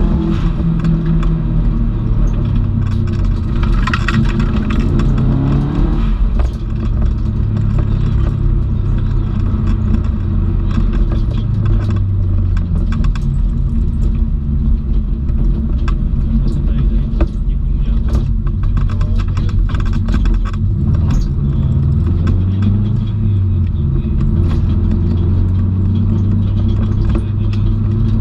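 Subaru Impreza WRX STI's turbocharged flat-four engine heard from inside the cabin while driving, its pitch rising and falling with throttle and gear changes, with the revs climbing about four seconds in. Road noise and scattered clicks run underneath.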